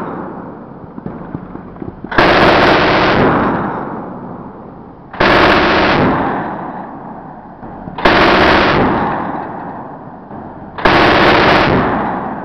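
20mm Oerlikon GAM-B01 deck cannon firing four short bursts of rapid fire about three seconds apart, each burst dying away slowly over a couple of seconds.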